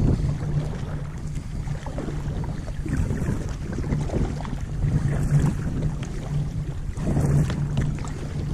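Small boat under way across open water, its motor running with a steady low hum, with wind noise rushing over the microphone.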